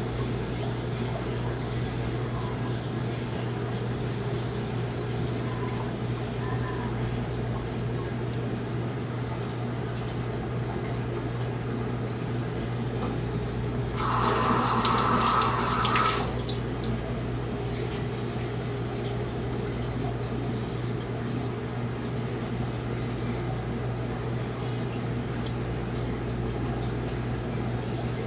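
Water running from a tap for about two seconds, roughly halfway through, over a steady low hum. In the first several seconds there are faint light scratchy strokes.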